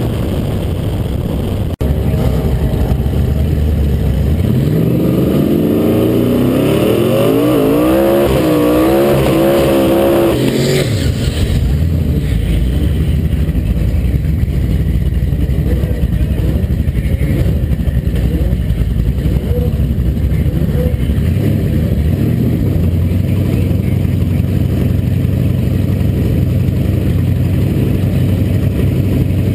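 1970 Ford Capri's twin-turbo 4-litre V8 revving up in a rising, wavering sweep for several seconds, then cutting off sharply with a brief hiss about ten seconds in. After that it runs low and steady.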